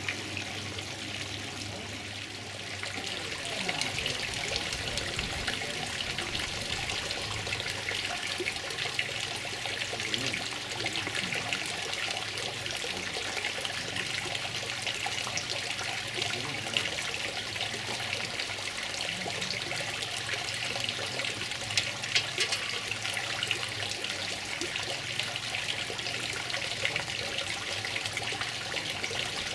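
Steady, even rushing hiss of outdoor garden ambience picked up by a camcorder microphone under a furry wind cutter, with no wind buffeting or crackle on the microphone.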